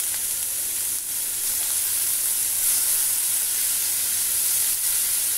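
Sliced onion, capsicum, tomato and cabbage sizzling in hot oil in a kadhai as they are lightly roasted, a steady high hiss. A spatula stirs through them near the end.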